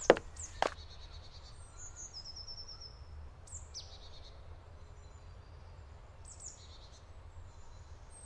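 Forest birds chirping: short high calls and a brief trill at intervals, over a steady low background rumble. Two sharp knocks come right at the start.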